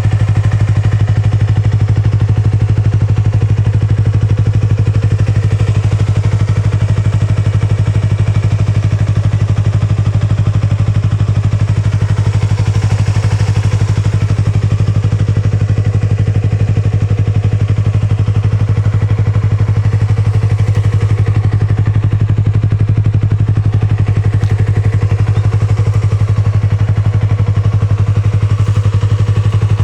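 Yamaha YZF-R25 250 cc parallel-twin running through a Yoshimura Cyclone aftermarket silencer, idling steadily at an even pitch with no revving.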